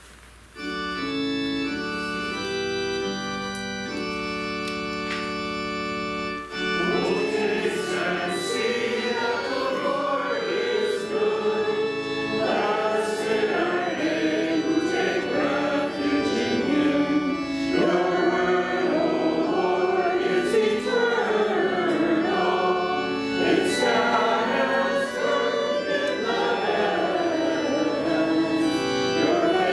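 Church organ playing a short introduction in held chords. About six seconds in, many voices join, singing a hymn together with the organ accompanying.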